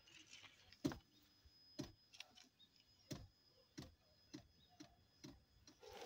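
Near silence broken by faint, irregular clicks and taps, about one a second.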